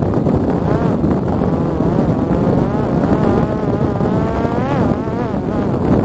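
Parrot Disco fixed-wing drone's electric propeller motor whining, its pitch wavering up and down and climbing sharply near the end as the throttle changes on the landing approach, over a steady rumble of wind.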